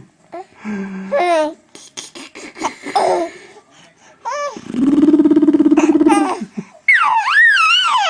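A young child laughing in short bursts. About halfway through comes one long, rapidly pulsing laugh, and near the end a high, wavering squeal.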